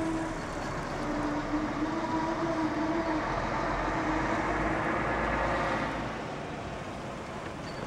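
Low-flying Schweizer S-269 helicopter passing: a steady engine-and-rotor drone with a humming tone, growing louder over the first few seconds and fading near the end.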